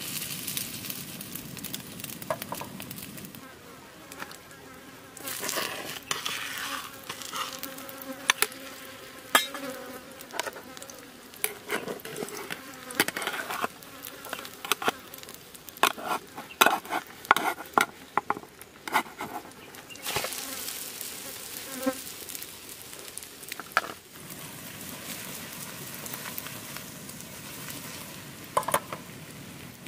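Omelette sizzling in oil in a small pan on a portable gas stove, with a fly buzzing close by for several seconds. Through the middle comes a run of sharp clicks and scrapes as a spatula works against the pan, lifting the omelette's edge.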